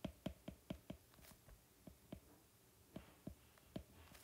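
Stylus tip tapping and stroking on a tablet's glass screen while handwriting: a run of faint, quick ticks, several a second, with a short pause about two seconds in.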